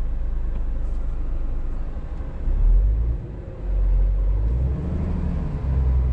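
Scania R410 truck's diesel engine heard from inside the cab, running with a low rumble that swells twice near the middle, then settling into a steadier, stronger engine note in the last couple of seconds as the truck gets under way on snow with the differential lock engaged.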